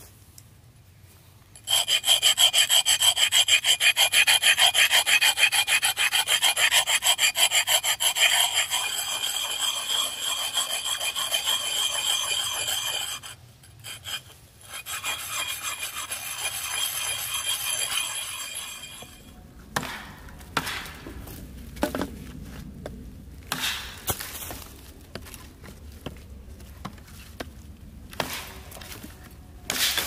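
Hand saw cutting through wood in quick strokes, starting about two seconds in, pausing briefly, then going on for a few more seconds. After that come scattered short knocks of wood being handled.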